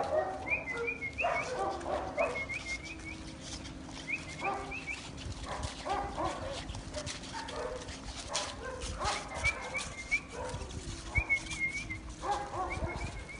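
A greyhound-type dog vocalizing in repeated short bursts of yelps and whines, with faint high squeaks in quick runs of three or four and many light clicks throughout.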